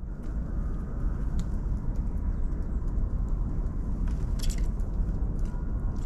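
Outdoor winter ambience: a steady low rumble, with a few short, high-pitched calls from tits around a bird feeder, the clearest about four and a half seconds in.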